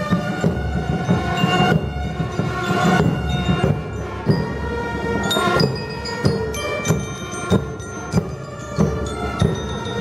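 Marching band (banda marcial) playing on the march: bell lyres ring out a melody over bass drums. In the second half the drum strikes land about every two-thirds of a second.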